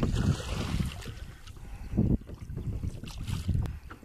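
A small boat being rowed: oar strokes and water noise, with wind rumbling on the phone microphone and a brief louder knock about halfway through.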